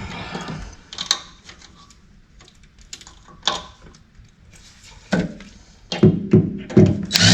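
Scattered knocks and clicks of hands handling tools and small hardware, sparse at first and coming more often near the end.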